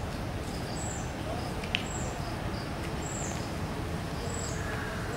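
A small bird repeating a short, high two-note call about every second and a quarter over a steady background hiss. A single sharp click comes just under two seconds in.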